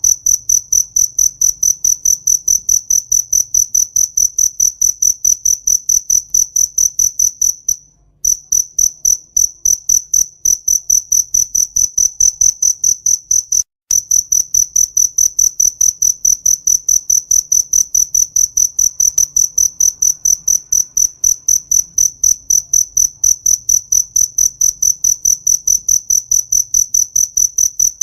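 A cricket chirping close by in a fast, even series of high-pitched pulses, several a second. It breaks off briefly twice, about 8 and 14 seconds in.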